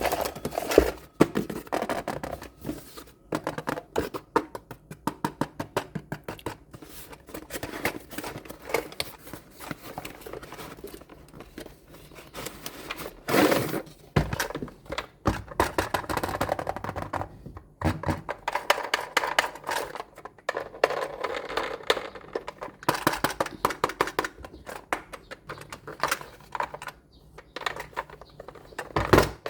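Hands handling toy trucks and their packaging: an irregular run of clicks and taps with stretches of crinkling and rustling, thickest in the second half.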